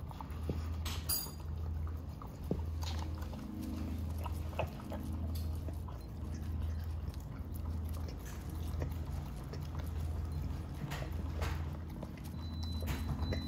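A Vizsla licking and lapping yogurt out of a small glass bowl: wet mouth and chewing sounds in a steady rhythm of laps, with occasional sharp clicks against the bowl.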